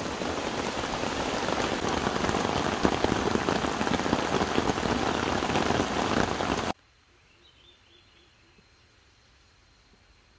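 Heavy rain pouring onto the lake's surface around the boat: a dense, steady hiss of patter. It cuts off abruptly about two-thirds of the way through, leaving near silence.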